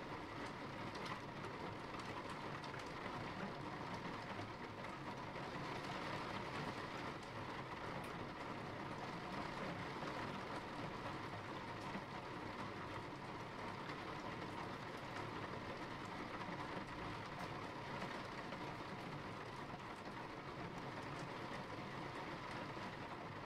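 Steady rain falling, an even continuous wash with a low rumble under it and faint scattered ticks of drops.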